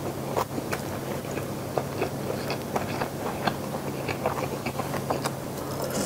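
A person chewing a mouthful of food with mouth closed, picked up close by a lavalier mic: soft, irregular wet clicks and smacks over a faint steady low hum.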